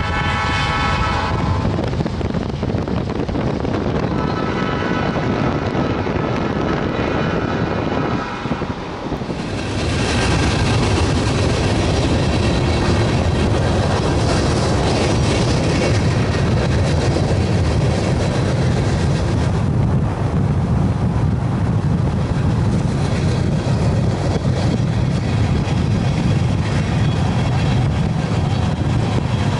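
Steady road and wind rumble from a car driving at speed, with a steady high-pitched tone over the first several seconds. The noise dips briefly about eight seconds in, then comes back louder and fuller.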